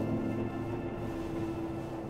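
Film soundtrack music: a sustained chord of steady held notes.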